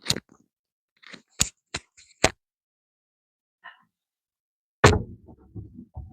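An NRG steering-wheel quick release worked close to the microphone: a few sharp metallic clicks, then about five seconds in a heavier clunk with a short rattle as the wheel is snapped onto its hub.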